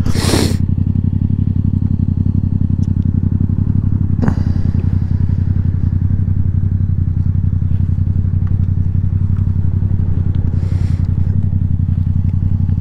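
Motorcycle engine with an Akrapovič aftermarket exhaust idling steadily at a standstill. There is a short burst of noise near the start and another about four seconds in.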